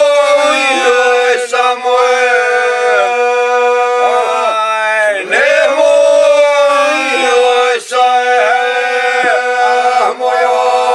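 Three men singing together unaccompanied in a traditional Bosnian style: a slow song of long held notes, their voices sliding between pitches, with short breath pauses about five and eight seconds in.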